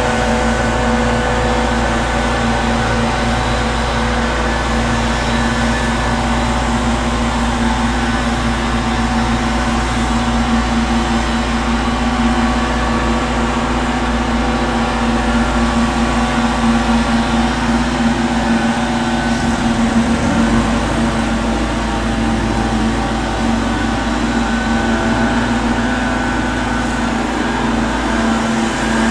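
Gardeners' power machinery running steadily outside, heard from inside a room: a continuous engine drone holding a fixed pitch, its low end shifting briefly about two-thirds of the way through.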